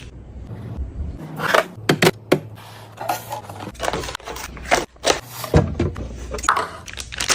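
Containers and kitchen items being handled and set down: irregular knocks, clinks and short scrapes.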